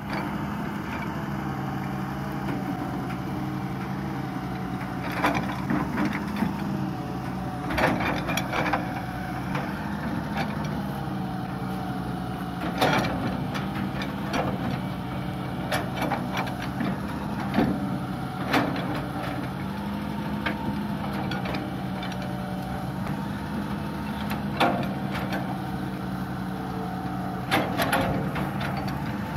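Hitachi EX200 long-reach excavator's diesel engine running steadily under hydraulic load, rising and falling slightly as the arm works. Short scraping knocks come every few seconds as the bucket presses and smooths the soil of the bank.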